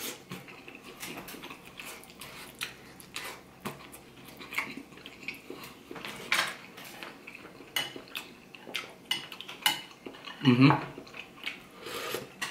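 Eating sounds: chewing and wet mouth noises, with many short clicks of chopsticks and a metal spoon against a ceramic plate and a glass bowl. About ten seconds in there is a louder slurp of broth from the spoon.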